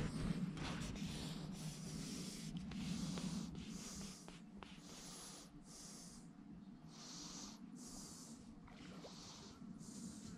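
Faint breathing close to the microphone, soft hissy puffs about once a second, over a low steady hum.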